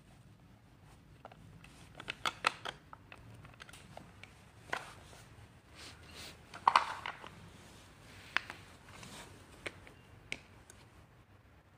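Hard plastic chair side-cover parts and a metal hex key being handled and fitted: scattered light clicks and knocks, with a short run of them about two seconds in and the loudest cluster about seven seconds in.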